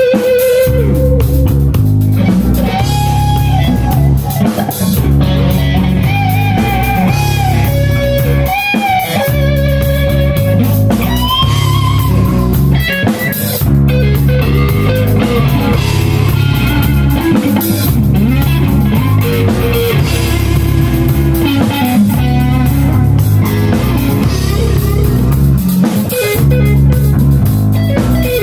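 Rock music: a lead electric guitar plays sustained, bending notes over bass guitar.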